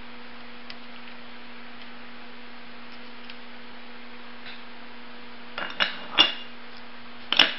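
Loose steel subtransmission parts (low-speed gear, shift fork and shaft) clinking against each other and the metal cover as they are set down: a few faint ticks, then three sharper metallic clinks in the last two seconds, over a steady low hum.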